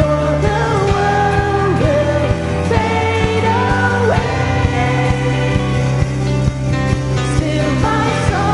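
Christian worship music: a sung melody over a band with sustained chords and a steady drum beat.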